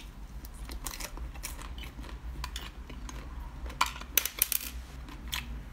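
Close-up crunching and chewing of a frost-coated frozen strawberry bitten off a skewer: irregular crisp crackles of the icy coating breaking between the teeth, with a louder cluster of crunches about four seconds in.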